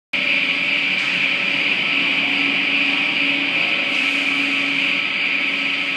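Electric rail transfer cart running along its rails: a steady mechanical whir with a low hum from the drive motor and gearing, and the wheels rolling on the track.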